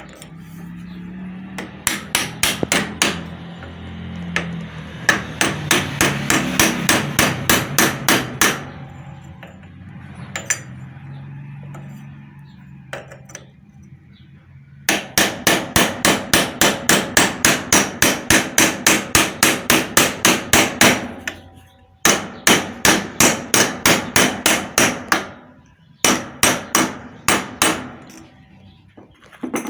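Hammer blows driving a new ball bearing (balero) into place on a centrifugal water pump, struck through a protective piece that shields the bearing's seal. The blows come in quick runs of about four a second, with short pauses between runs.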